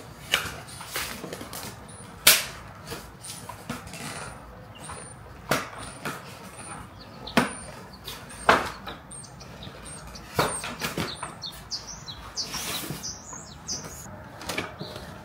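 Fabric cover being pulled off a child's plastic car seat: rustling and flapping of the fabric, with several sharp plastic clicks and snaps as clips and straps come free, the loudest about two seconds in.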